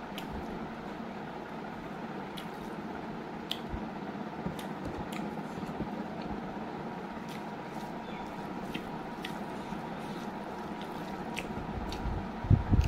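Close-up eating sounds: rice and curry squished and mixed by hand, then chewed. Soft wet squishes and small scattered clicks sit over a steady background hiss, with a louder low thump near the end.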